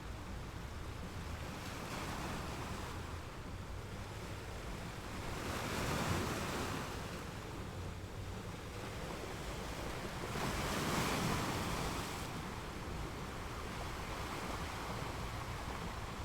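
Ocean waves washing onto a shore in a continuous hiss, with two larger waves breaking louder about six and eleven seconds in.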